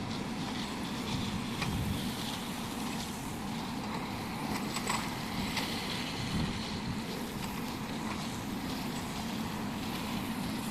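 Excavator's diesel engine running steadily, with a few short clicks over it.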